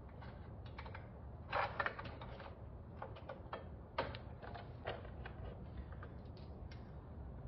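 Light metallic clicks and clinks of exhaust stack hardware (stack flange, nuts and washers) being fitted by hand onto an aircraft engine's cylinder exhaust studs. There is a short cluster of rattles about one and a half seconds in, then sharp single clicks near four and five seconds.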